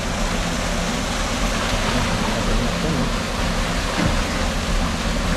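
Steady rush of flowing and falling water from a waterfall and stream.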